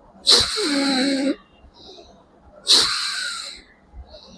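Bhastrika pranayama (bellows breathing): forceful, rushing breaths through the nose. There are two, about two and a half seconds apart, each starting sharply and trailing off over about a second. The first carries a brief vocal tone.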